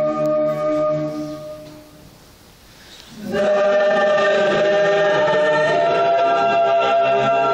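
Mixed choir singing a Polish Christmas carol a cappella in a large church. A held chord fades away about a second and a half in, leaving a short quiet stretch, and the choir comes back in loudly with full sustained chords at about three seconds.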